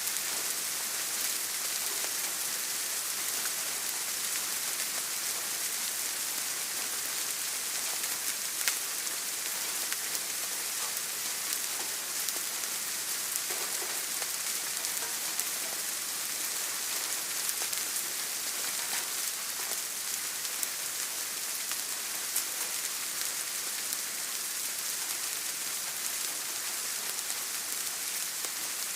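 Steady rain falling: an even hiss of drops with scattered sharper single drop ticks, a couple standing out, the clearest about nine seconds in.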